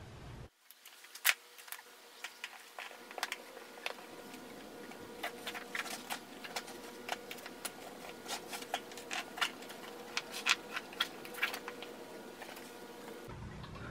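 Irregular clicks, taps and light scrapes of hands and tools working a bicycle tire off its wheel rim, over a faint steady hum.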